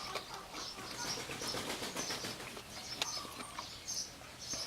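Birds chirping faintly in the background, with a few light clicks of cutlery against a plate.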